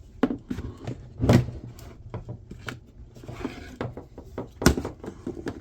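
A jump starter pack's plastic case being handled and set down on a work surface: a series of irregular knocks and clacks, with two louder ones, about a second in and near the end.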